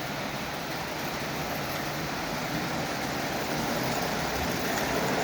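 Lionel 8410 General toy locomotive and its passenger cars running steadily on the track, a smooth, quiet rolling rumble that grows a little louder near the end.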